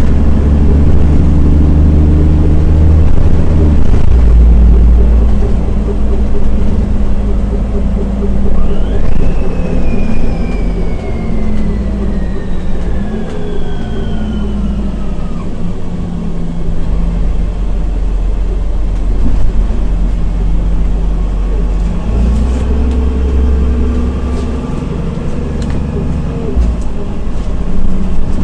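Solaris Urbino 15 city bus driving, its engine running with a low rumble that rises and falls in pitch as the bus pulls away and changes speed. A high whine glides slowly down for several seconds about ten seconds in.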